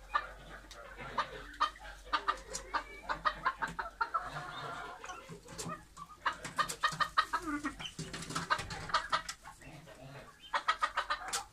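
Clucking from a mixed flock of domestic chickens and golden pheasants, in several quick runs of short, sharp clucks.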